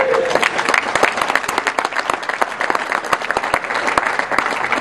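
Wedding guests applauding, many people clapping together.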